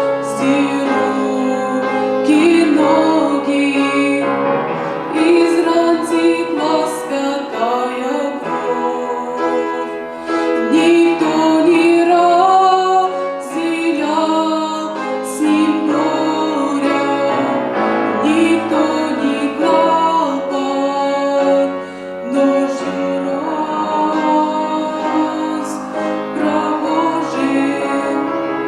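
Music: a church song sung by a woman's voice over keyboard accompaniment.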